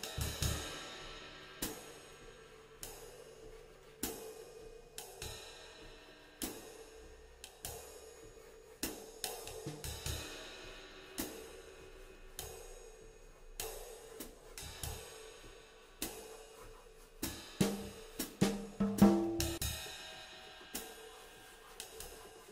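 Swing drumming on a drum kit: cymbal and hi-hat strokes about every second, each ringing out, with snare and bass drum hits. A louder run of hits comes about three quarters of the way through.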